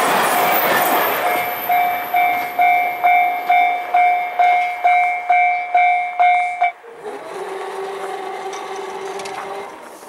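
The tail of a KiHa 261 series diesel express train rushing past a Japanese level crossing, its noise fading over the first couple of seconds, while the crossing's electronic alarm rings about twice a second. The alarm cuts off abruptly about two-thirds of the way through, and a steady motor hum follows for about three seconds as the barrier arm rises.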